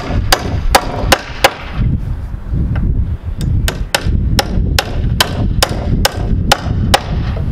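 Claw hammer driving a 16d nail through a 2x4 brace into a wall stud (toenailing): a run of about five sharp strikes roughly three a second, with a ringing tail, a pause of about two seconds, then a second run of about a dozen strikes.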